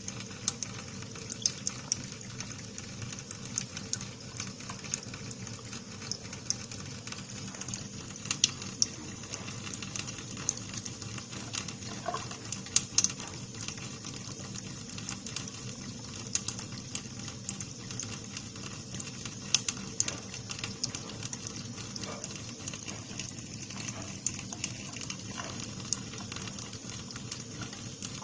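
Water tap running in a steady stream, with irregular sharp ticks and splats of water through it.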